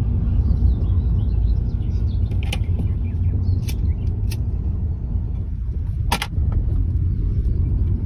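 Car driving slowly, heard from inside the cabin: a steady low rumble of engine and tyres, with a few short knocks, the loudest about six seconds in.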